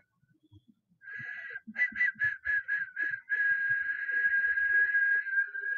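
High electronic tone over a desk telephone line. It beeps rapidly, about five times a second, for a second or so, then holds as one steady tone.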